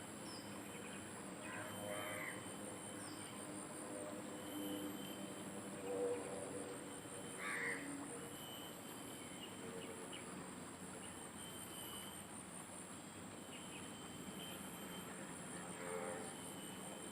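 Steady high-pitched insect chorus with a regular pulsing, and short bird calls three times over it.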